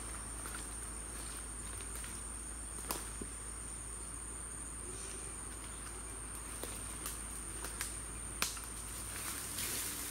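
Insects trilling in one steady, high-pitched note, with a few sharp clicks scattered through, the loudest about eight and a half seconds in.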